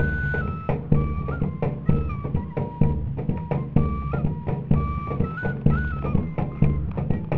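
Pífano (wooden cane fife) playing a stepwise traditional northeastern Brazilian melody over a steady drum beat.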